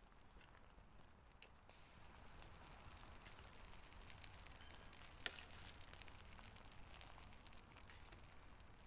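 Faint sizzling and crackling from camp cooking. It starts about two seconds in, with one sharper click near the middle.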